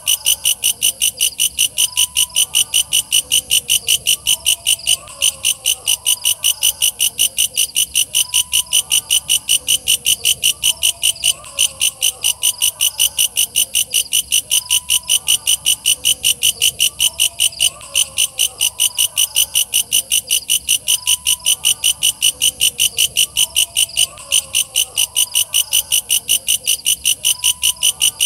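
Walang kecek bush cricket calling: a loud, rapid, high-pitched chirping of about four pulses a second, in long runs broken by a brief pause every six seconds or so.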